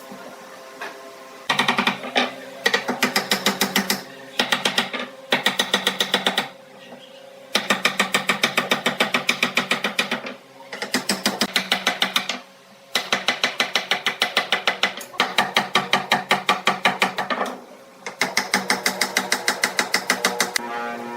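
Rapid mechanical tapping of a woodworking tool, about ten strikes a second, in bursts of one to three seconds with short pauses between them, over a faint steady hum.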